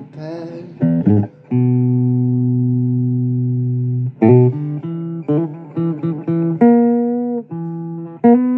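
Blues recording with guitar: one long held note, then a run of shorter notes.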